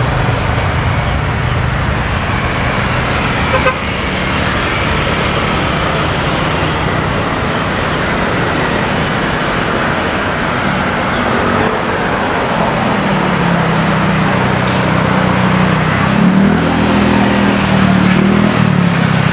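Steady road traffic noise with motor vehicle engines running; over the last several seconds a low engine drone wavers up and down in pitch.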